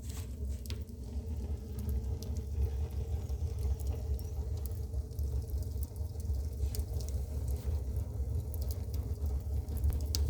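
Wood fire burning in a fireplace: a steady low rumble of the fire and draft, with scattered sharp crackles and pops.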